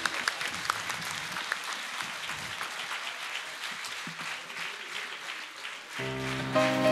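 Audience applause, many people clapping, slowly fading. About six seconds in, piano music begins.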